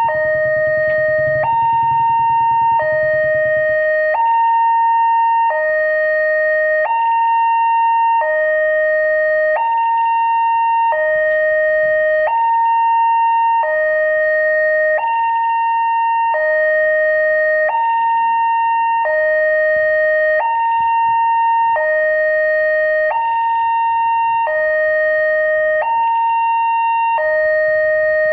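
New electronic warning siren at a railway level crossing, sounding a steady two-tone hi-lo alarm: a low tone and a higher tone alternate, each held about a second and a half, over and over. It is the crossing's warning that a train is coming.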